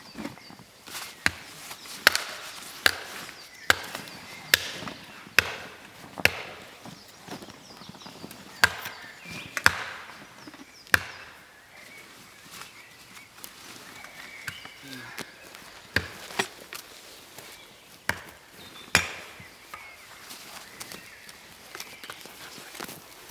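Axe chopping wood: a run of sharp, irregular strikes, about one a second at first, then a pause of a few seconds before more blows.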